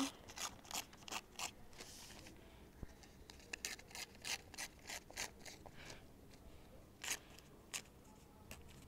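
Newspaper being cut into strips along a ruler's edge: a faint run of short, crisp paper rips and rustles, a few each second.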